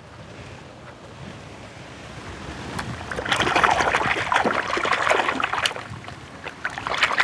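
A hand splashing and churning foamy water while pushing a toy car through it, starting about three seconds in after a faint quiet stretch, with a short lull near the end.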